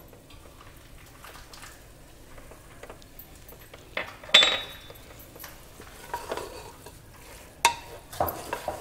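A sharp metallic clink with a brief ring about four seconds in, then a wooden spatula stirring and scraping jackfruit and spices around a pressure cooker pan, with a few knocks against the pot over the last couple of seconds.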